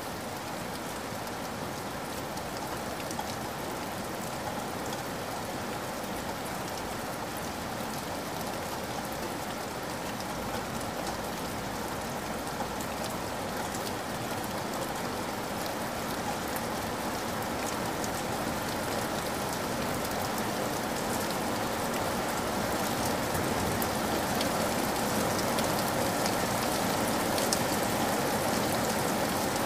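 Steady rain: an even hiss with a fine patter of drops, growing slowly louder over the second half.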